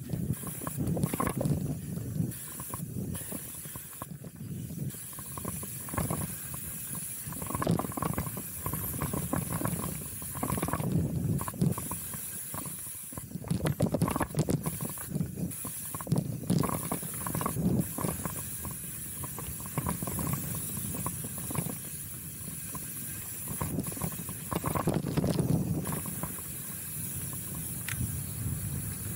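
Chromag Rootdown steel hardtail mountain bike ridden down a dirt singletrack: steady tyre noise over the dirt, with frequent irregular knocks and rattles from the bike over bumps, and wind rush on the microphone.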